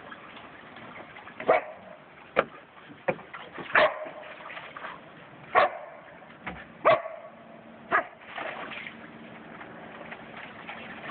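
A dog barking in short, sharp single barks, about seven of them at irregular intervals.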